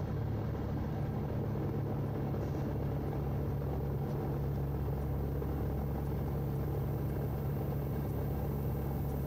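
A light aircraft's engine and propeller running steadily at idle, heard inside the cockpit as an even, low hum.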